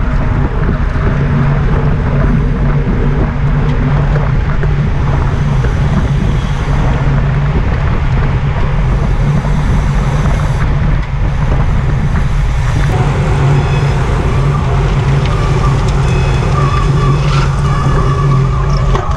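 Steady rush of wind and road noise from a camera moving along with a road-cycling peloton, with a constant low drone beneath it.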